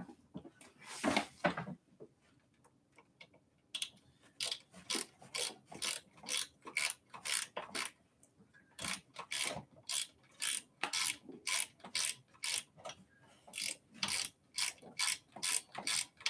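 Ratchet wrench clicking in quick, even back-and-forth strokes, about three a second, with a short pause partway through, tightening the kickstand mounting bolt at the rear of an e-bike frame. It starts a few seconds in.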